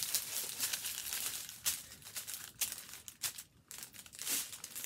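Plastic protective film on a diamond painting canvas crinkling and rustling as hands spread and smooth the canvas flat, in irregular rustles with sharp crackles.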